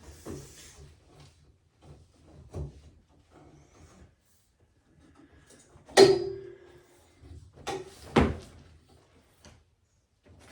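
A few knocks and thuds from handling the display cabinet and its panels: a light one early, the loudest about six seconds in with a short ringing hum after it, and another sharp knock about two seconds later.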